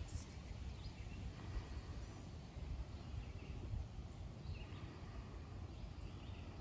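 Outdoor background: a steady low rumble with faint, scattered bird chirps.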